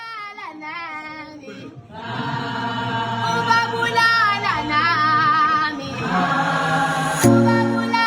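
Background music with singing: a voice with vibrato, then a fuller arrangement coming in about two seconds in, and a sharp hit near the end.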